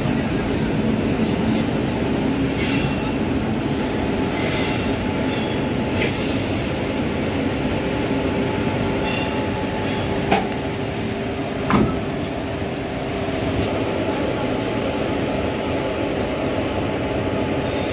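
WAP4 electric locomotive running with a steady hum and rumble as it closes up to the coach at low speed, with two sharp metallic clanks about a second and a half apart just past the middle as its coupler and buffers meet the coach.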